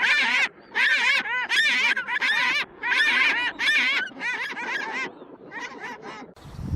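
Animal calls: short, arching high-pitched calls in quick clusters of several each, with brief gaps between clusters, cutting off abruptly near the end.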